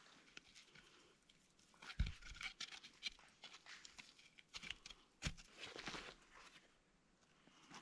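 Faint rustling and small clicks of hands working with wooden sticks and cord in the snow, with two dull knocks, about two seconds in and again past five seconds, and a rustle of cloth near the end.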